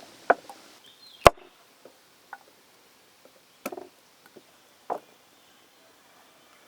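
A handful of sharp knocks and taps at uneven intervals, the loudest about a second in, typical of food-preparation sounds such as chopping on a board.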